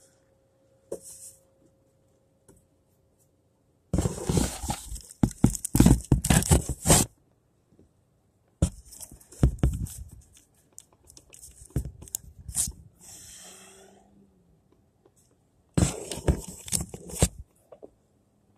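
Four bursts of close rustling and crackling, each a second or more of rapid crackles, with quiet gaps between.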